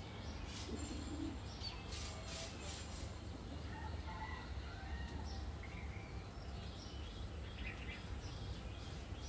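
Short, scattered bird chirps and calls over a steady low hum.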